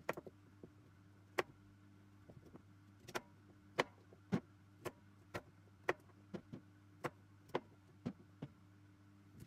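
Kitchen knife chopping squash on a cutting board: sharp, separate knocks of the blade striking the board, a few at first, then roughly two a second from about three seconds in, over a faint steady hum.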